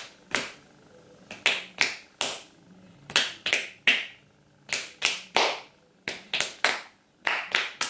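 Two people playing a hand-clapping game: a quick run of sharp hand claps and palm slaps in uneven groups of two to four, about seventeen in all.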